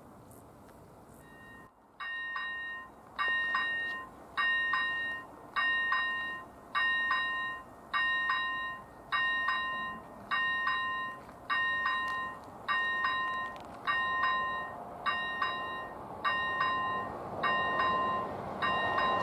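Level-crossing warning bell starting about two seconds in, ringing one fading ding roughly every 1.2 seconds as the crossing signal activates. A rushing noise swells beneath it near the end.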